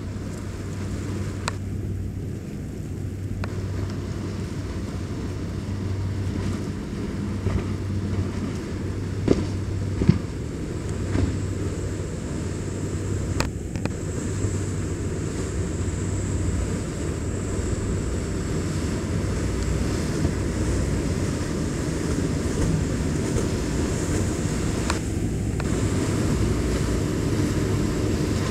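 Motorboat engines running as boats pass: a steady low drone that grows louder toward the end, with wind on the microphone and a few brief sharp clicks.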